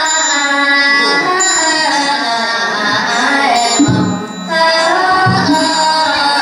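A group of voices chanting a melodic Buddhist invocation in unison. There is a brief dip about four seconds in, after which a deeper line joins.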